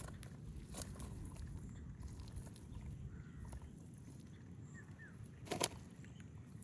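Outdoor river-bank ambience: a steady low rumble with faint clicks, a bird giving two short rising chirps near the end, and one brief sharp noise, the loudest thing here, about five and a half seconds in.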